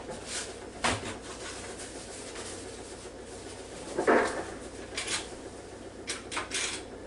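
Kitchen handling sounds: a few light clicks and knocks, with a louder knock about four seconds in.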